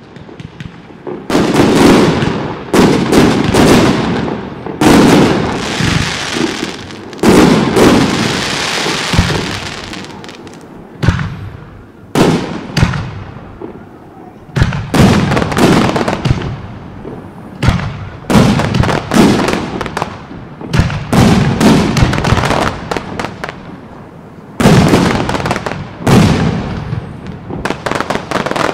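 Aerial firework shells bursting in quick succession, sharp bangs one after another, each trailing off in a rolling echo. The bangs start about a second in.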